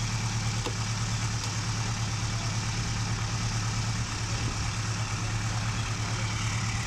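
An engine idling with a steady low hum, over a constant background hiss.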